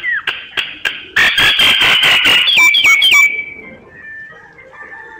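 Decoy myna calling to draw in wild mynas: whistles and harsh clicking notes, then a dense run of rapid rasping chatter that ends in short falling whistles about three seconds in, followed by quieter notes.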